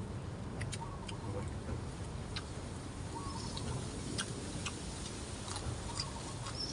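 Wind rumbling on the microphone, with scattered small clicks and ticks throughout.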